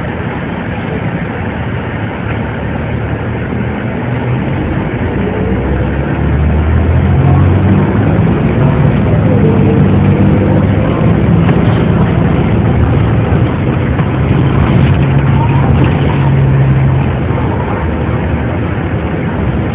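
Inside a 2002 ElDorado EZ-Rider II transit bus: the engine runs low and steady at first, then about six seconds in it grows louder as the bus pulls away, and the drone holds while the bus travels, easing off a little near the end.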